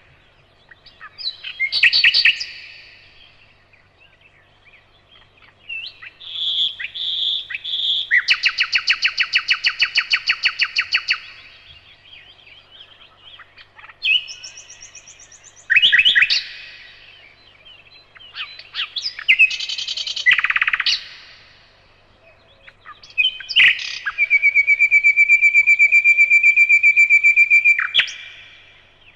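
Nightingale singing: a string of varied phrases with short pauses between them, built of rapid repeated notes, whistled notes and fast trills. It ends with a long, even trill of rapidly repeated notes.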